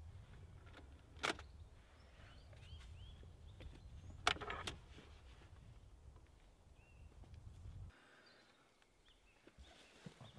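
Wooden knocks and clunks as a fold-down wooden shelf on a van's rear door is lowered and a leather bag is set on it, two sharp knocks about one and four seconds in, the second the loudest. Faint bird chirps sit over a low outdoor rumble, which drops away about eight seconds in.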